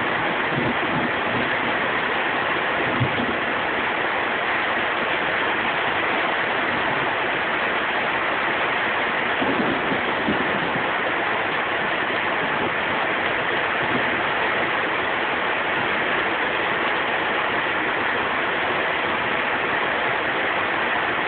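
Heavy thunderstorm rain falling in a steady downpour, with a few brief low rumbles near the start and about halfway through.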